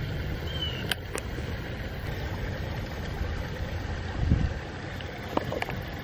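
Steady low rumble of distant road traffic. A short high chirp comes about half a second in, and two sharp clicks follow around a second in.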